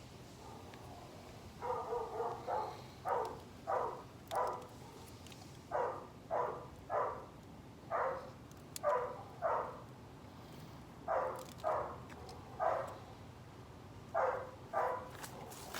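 A dog barking over and over, short barks in loose runs of two or three starting about one and a half seconds in.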